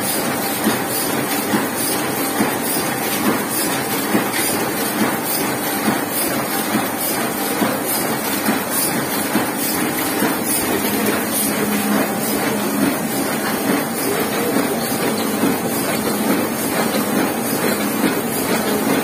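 Heidelberg KORS single-colour sheetfed offset press running at production speed: a steady mechanical clatter with a regular beat of a little under one a second.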